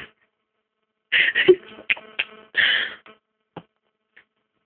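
A child's short non-speech vocal noises while trying to burp, with a brief buzzing, croaking burp sound in the middle, then a couple of faint clicks near the end.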